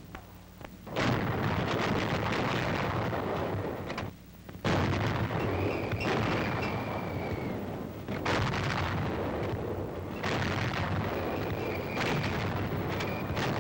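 90mm anti-aircraft guns firing: about five heavy blasts a few seconds apart, each followed by a long rumble that runs into the next.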